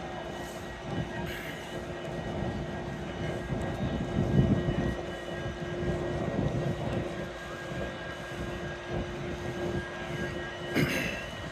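A steady engine drone with a constant hum under an uneven low rumble that swells about halfway through, and a sharp knock near the end.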